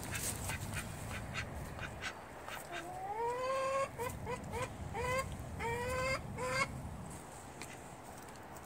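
Domestic duck quacking in a short series about three seconds in: a long rising call, several short quacks, then another longer call and a last short one. Light clicks come before the calls.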